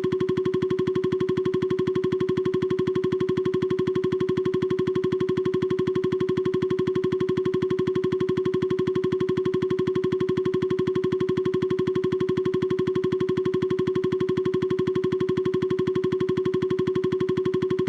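Japanese railroad crossing warning bell, an electronic ding at one fixed pitch repeating rapidly and evenly without a break.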